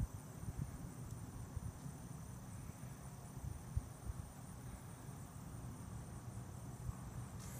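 Steady high-pitched chirring of insects, with a faint irregular low rumble underneath.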